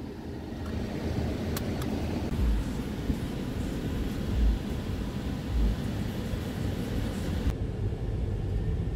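Road and engine rumble heard inside a moving car's cabin: a steady low rumble with a few brief, dull low thumps.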